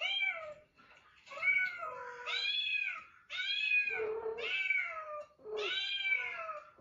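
A kitten meowing over and over: about six high-pitched meows in a row, each rising and then falling in pitch, with short pauses between them.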